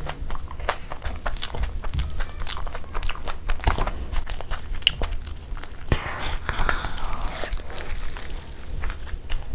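Close-miked mouth sounds of biting into and chewing puri soaked in spicy egg masala: a string of irregular soft clicks and smacks.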